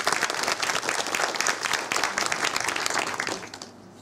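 Audience applauding, many hands clapping together, dying away about three and a half seconds in.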